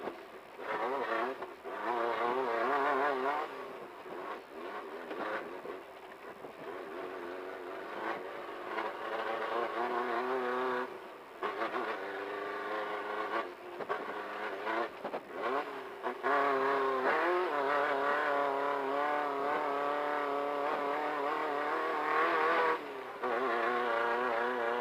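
Off-road race car engine running hard under load, its pitch climbing as it accelerates and wavering over rough ground, with brief drops when the throttle is lifted three times.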